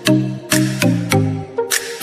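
Electronic background music with a steady beat and a pitched bass line.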